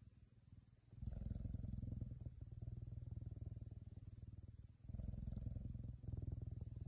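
A caracal purring while it sucks on a person's thumb: a low, rapid purr that starts about a second in and carries on with two brief breaks near the end.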